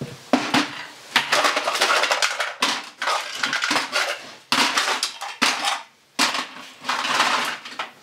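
Crushed aluminium cans clattering and scraping as they are scooped off a concrete floor by hand and dropped into a bucket, in several bursts of rattling with short pauses between.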